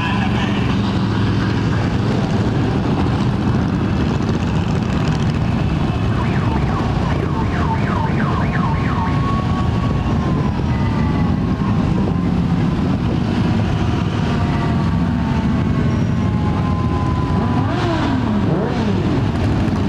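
A column of motorcycles, mostly big V-twin cruisers with some sport bikes, riding past at low speed, their engines making a steady continuous rumble with revs rising and falling as bikes go by. High tones slide in pitch over the engines through the middle and near the end.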